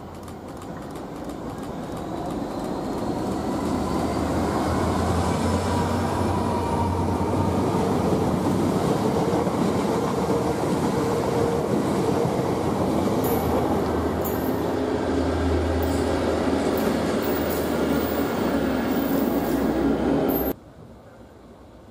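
A multiple-unit passenger train passing close by, growing louder over the first few seconds into a steady heavy rumble of wheels on rail, with high-pitched wheel squeal in the second half. It cuts off abruptly near the end.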